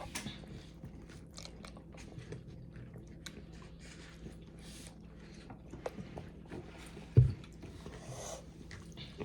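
A person chewing food close to the microphone: small wet mouth clicks and smacks, with one sharp low thump about seven seconds in.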